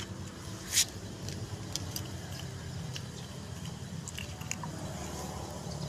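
Cat crunching dry kibble from a plastic tray, a string of small irregular crunching clicks, with one louder brief crackle about a second in.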